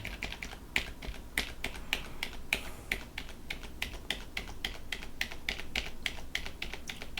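Computer keyboard clicking: irregular keystrokes, about three or four a second.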